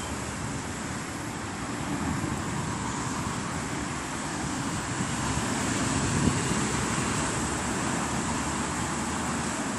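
Steady outdoor background noise: a low rumble like distant road traffic with a constant hiss above it, swelling a little around the middle.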